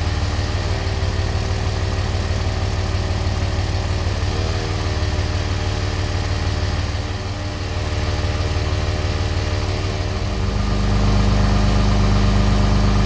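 Harbor Freight 69285 12-volt portable air compressor running on a tire alongside the idling diesel engine of a Dodge Ram 2500. The compressor's pitch sags and recovers twice as it kicks down and back up, because the cold diesel's glow plugs draw heavily on the alternator. About ten seconds in the sound steps up louder, with a deeper hum.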